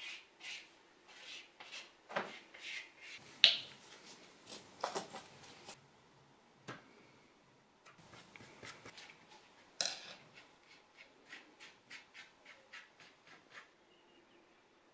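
Small handling noises of a paint tube being opened, with a sharp click about three and a half seconds in. From about eight seconds in comes a run of quick paintbrush strokes dabbing paint onto a painting board, about three a second, which stops shortly before the end.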